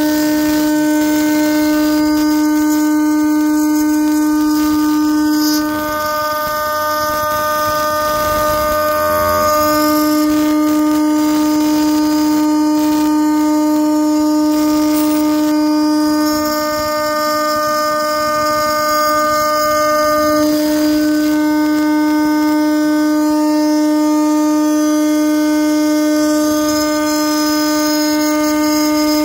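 CNC router spindle at about 18,000 RPM driving an end mill through a 10 mm deep contour cut in an aluminium block under a heavy chip load. It makes a loud, steady whine with a ladder of overtones, and the whine weakens briefly twice, about 6 and 17 seconds in.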